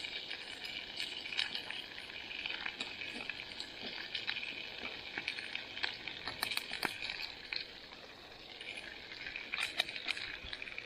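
Oil sizzling and crackling in a frying pan as lamb chops fry, a steady hiss with sharp spits and pops that eases briefly about eight seconds in before the crackling picks up again.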